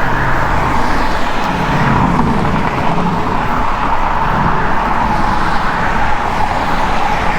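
Steady road noise heard from a moving bicycle: motor traffic going by on a highway, mixed with the rush of wind.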